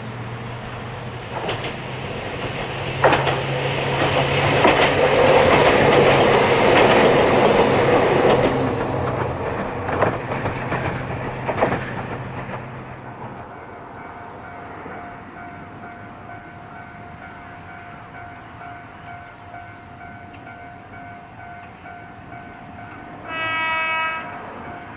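Ohmi Railway electric train, set 105F, passing close by: a steady motor hum with the clack of wheels over rail joints, building to a peak and fading away over about twelve seconds. Near the end, one short train horn blast.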